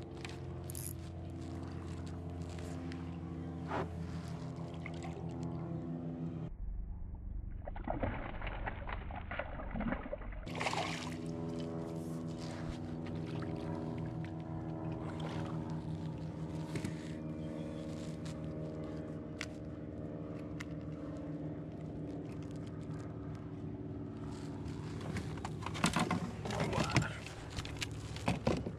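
A steady motor hum made of several even, unchanging tones, with scattered knocks and splashes of handling on the kayak. A cluster of louder knocks and thumps comes near the end.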